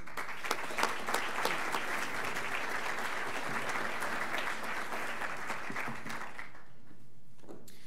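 Audience applauding: dense clapping that dies away about six and a half seconds in.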